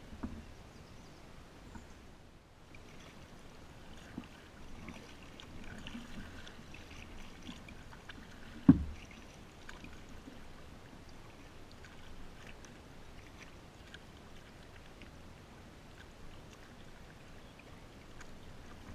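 Kayak paddling: paddle blades dipping and water dripping, with small scattered taps and one sharp knock a little before halfway through.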